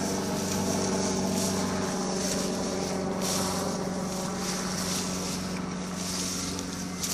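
A steady engine hum at a constant pitch, unseen and unchanging, with a higher hiss that swells and fades.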